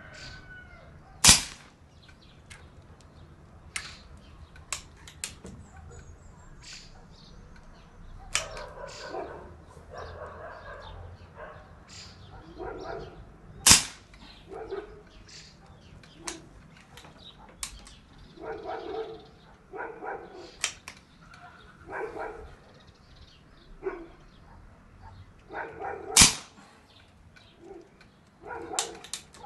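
A PCP air rifle fires three sharp shots, about twelve seconds apart, at a paper target, with small metallic clicks between shots as the action is cycled and pellets are loaded. Animal calls sound in the background between the shots.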